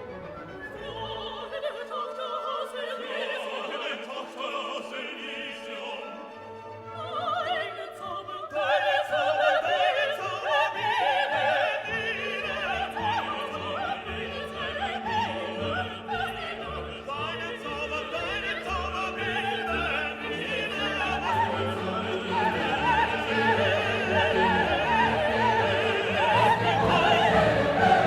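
Background classical music: an orchestra with operatic singing, quiet at first, then swelling about eight seconds in and building louder toward the end.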